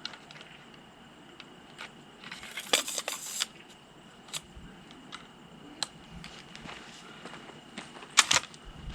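Henry Big Boy .44 Magnum lever-action rifle being loaded and readied to fire: scattered metallic clicks, a run of clacks about three seconds in, and a quick pair of sharp clacks near the end.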